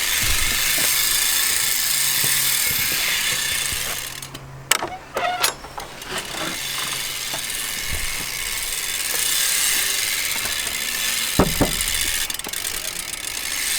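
Profile Elite rear cassette hub with a titanium driver, freewheeling in a fast, high buzz of ratchet clicks as the bike coasts. The buzz breaks off for about a second about four seconds in, with a few sharp clicks, and there is a knock near the end.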